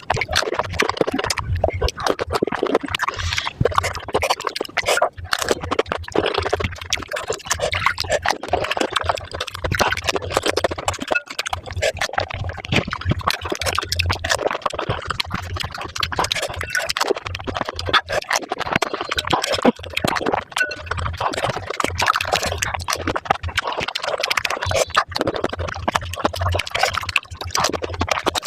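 Pani puri being eaten close to the microphone and played back at five times speed: a fast, continuous stream of crisp puris crunching and spicy water slurping.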